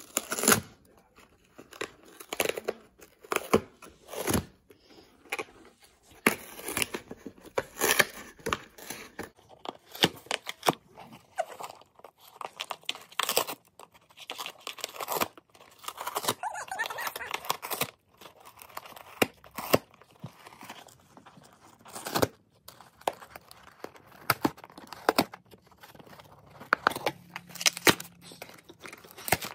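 A dog tearing at a cardboard shipping box with its teeth: repeated short, irregular rips and crinkles of cardboard and paper.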